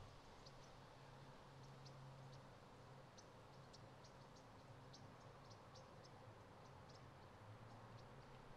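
Near silence: faint low hum with scattered faint, short high ticks.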